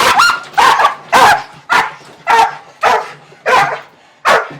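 Young working dog barking repeatedly: about eight loud barks in a steady rhythm, a little over half a second apart.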